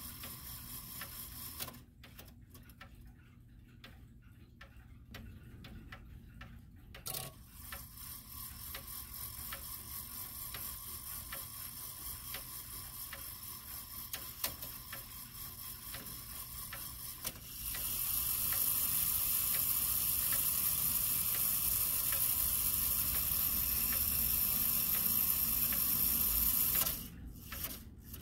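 Howard Miller Haverhill triple-chime grandfather clock movement ticking steadily, with one louder click about seven seconds in. A steady hiss comes in a little past halfway and cuts off suddenly near the end.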